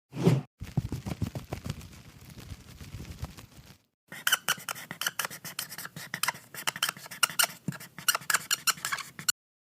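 A short thump, then a run of quick, irregular clicks and scrapes in two stretches, the second sharper and brighter than the first; it cuts off suddenly.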